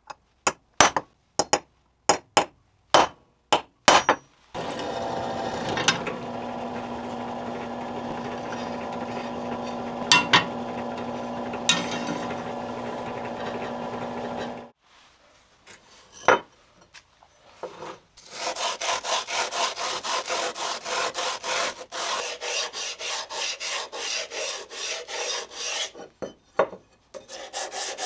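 A ball-peen hammer taps a steel pin punch against a cleaver's tang, about eight sharp metallic taps. Then a bench drill press runs with a steady hum, drilling through the steel tang for about ten seconds before stopping. After a pause with a few knocks, a wooden sanding block is scrubbed back and forth over the rusty steel blade in quick, even strokes.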